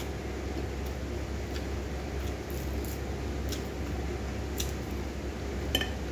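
Hand-eating sounds: scattered small clicks and ticks as fried fish is picked apart with the fingers on a ceramic plate and chewed, over a steady low background hum. Near the end one sharper clink with a brief ring, like the plate being tapped.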